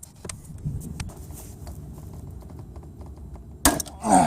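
Small metallic clicks and taps of wrenches working on the power steering pump pulley nut, held by a chain strap wrench, with a sharp loud crack about three and a half seconds in and a louder clatter just after it.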